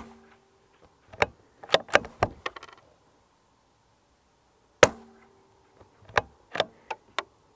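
Two shots from a CZ 457 bolt-action rifle firing .22 Long Rifle, one right at the start and one about five seconds in. Each shot is followed about a second later by a quick run of metallic clicks as the bolt is worked to eject the spent case and chamber the next round.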